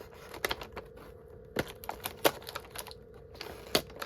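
Sharp clicks and taps of fingers handling and prying open a small cardboard advent calendar box, about four louder clicks among lighter ticks, over a faint steady hum.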